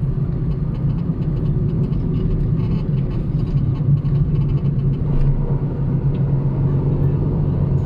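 Car driving along a paved road, heard from inside the cabin: a steady low hum of engine and tyre noise.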